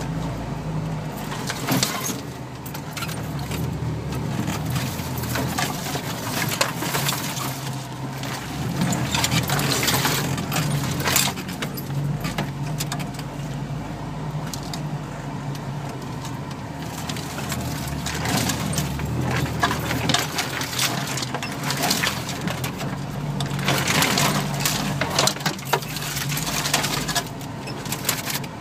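Steady engine drone heard from inside a 4x4's cabin as it crawls along a rough, snowy off-road track, with frequent rattles and clinks from loose items and the body jolting over the ruts.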